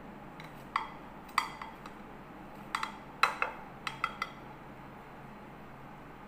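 Kitchen tongs clicking and clinking against a glass bowl while sugar-glazed fried sweet potato slices are lifted out: about ten sharp clicks in irregular clusters over the first four seconds or so, over a faint steady hum.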